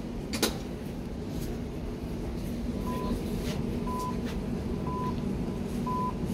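Door-closing warning of a Hamburg U-Bahn DT5 train: a short beep about once a second, starting about three seconds in, signalling that the doors are about to close. A steady low hum from the standing train runs underneath, and there is a single click near the start.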